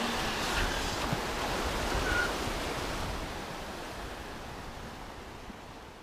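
Small surf waves washing and breaking onto the beach, a steady hiss of water that fades away over the last few seconds.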